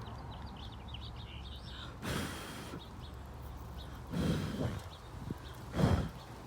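A person blowing on a dandelion seed head in three short puffs of breath, about two, four and six seconds in. Faint bird chirps in the background.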